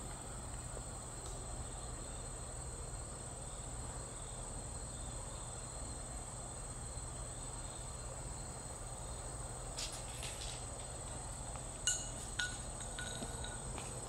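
Steady chorus of insects, crickets by the sound, chirring at a single high pitch. Under it sits a low steady rumble from the stopped freight's diesel locomotives idling. A few faint clicks come near the end.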